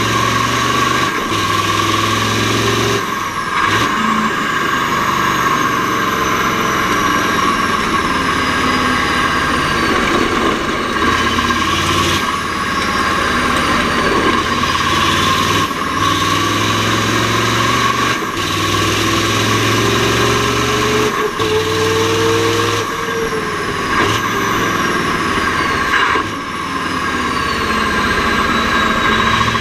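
Mack R-series V8 diesel race truck running hard, its engine note stepping up and down with short breaks every few seconds as it is shifted through the gears. A faint high whistle falls slowly in pitch several times over the engine.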